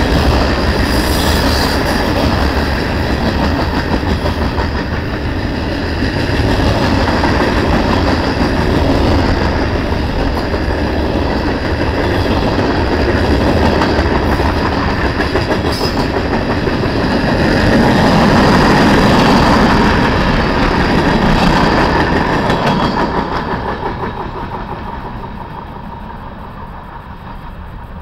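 Covered hopper cars of a freight train rolling past close by: a steady rumble and rattle of steel wheels on the rails, dying away over the last few seconds as the end of the train goes by.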